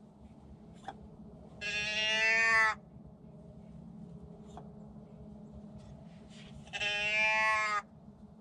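Two long bleating calls, each about a second long and sinking slightly in pitch, one about two seconds in and one near the end.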